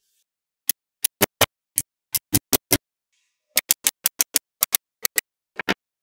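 Small magnetic balls clicking as they snap onto rows of other magnet balls. Sharp separate clicks come several a second, in two quick runs with a short pause about halfway.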